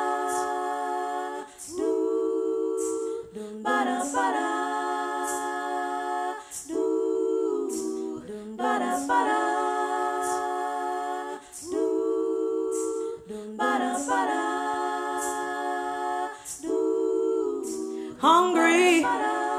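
Wordless a cappella vocal harmonies layered with a loop pedal: sung chords that change in a repeating cycle of about five seconds, with short hissing percussive sounds on top. Near the end a voice slides up and down into a new phrase.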